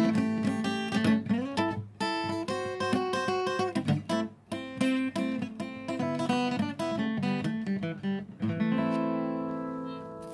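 Steel-string acoustic guitar strummed, accompanying an enka ballad, with a man's voice singing over it at first. About eight and a half seconds in, a last chord is struck and left to ring, fading away.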